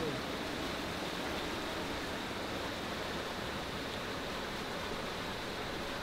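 Stream water rushing and splashing over rocks in a steady, unbroken rush.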